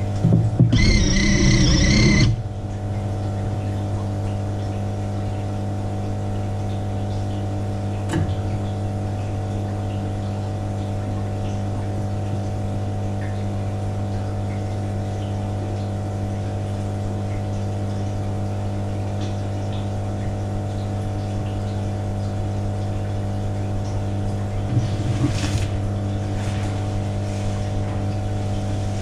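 Steady low machine hum with a strong low drone and several steady tones above it. Near the start, a louder burst with a high-pitched tone lasts about a second and a half. A few faint knocks follow later.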